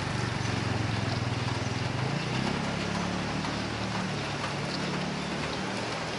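Motor scooter engine running close by, its note rising about two seconds in, over a steady hiss of rain on a wet street.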